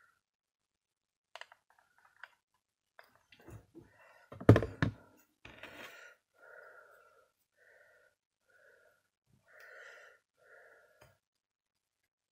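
Crafting handling sounds: a few small clicks, then a cluster of knocks with one loud thump about four and a half seconds in as the hot glue gun is set down on the work table, followed by a run of faint short puffs.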